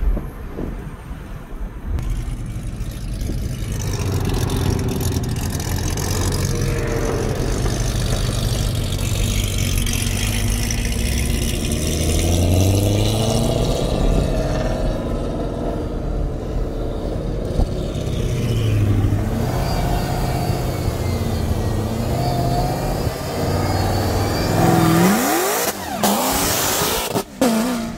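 Corvette C7 Z06's supercharged V8, fitted with a big cam and a Magnuson 2650 supercharger, accelerating hard and shifting, its revs rising and dropping again and again. Near the end it comes up close with fast rising revs.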